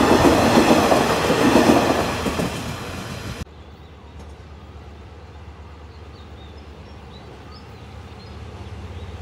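Passenger train coaches rolling past close by, their wheels clattering over the rails and fading away. After a sudden cut about three and a half seconds in, a diesel locomotive's engine drones faint, low and steady as its train approaches, growing a little louder near the end.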